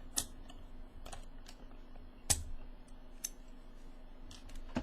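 A few scattered key presses on a Leopold FC660C keyboard with Topre capacitive rubber-dome switches, irregularly spaced, one louder than the rest about two seconds in.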